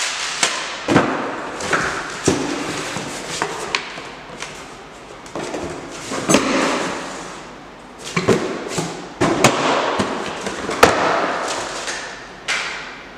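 Packing paper and cardboard rustling and crinkling as a shipping box is unpacked by hand. Several sharp knocks and thumps come in between, and tissue paper in a shoebox rustles near the end.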